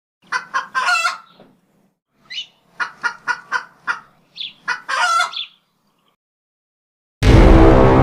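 Chicken sound effect: a run of short clucks with a couple of longer calls, then silence. About seven seconds in, a very loud, deep cinematic horn blast starts and holds.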